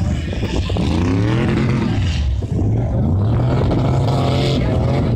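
Off-road truck engines running with a steady low rumble, one engine revving up and down in long sweeps a couple of times.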